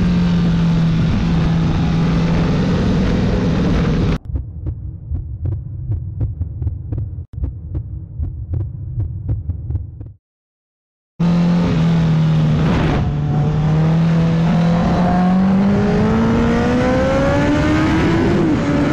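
Honda CBR600RR inline-four engine running at a steady pitch, then dropping to a quieter, choppy sound with regular ticks for about six seconds. After a second-long cut-out, the engine pulls again with its pitch rising steadily as the bike accelerates.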